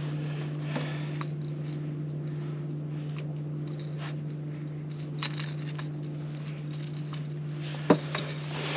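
A steady low hum, with scattered faint clicks and rustles and one sharp knock near the end.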